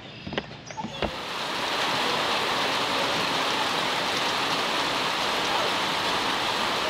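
Heavy rain falling on a lake, a steady hiss of drops hitting the water, setting in about a second in.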